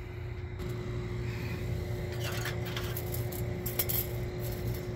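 A few light clinks and taps of objects being handled, over a steady low hum.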